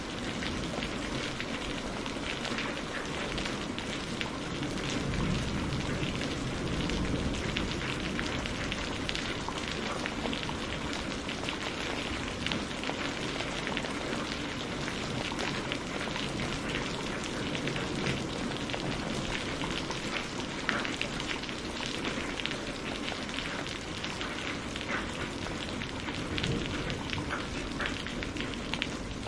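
Steady rain of a thunderstorm, an even hiss with many fine drop ticks and no distinct thunderclap.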